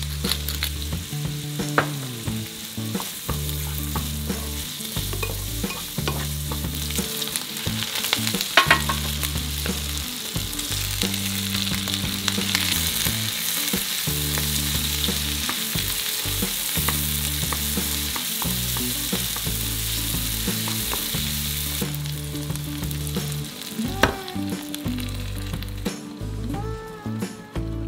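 Bacon, mushrooms and onion sizzling as they are stir-fried in a frying pan with a wooden spatula, later with spinach and cherry tomatoes, with an occasional click of the spatula. Near the end, beaten egg is poured in and the sizzle dies down.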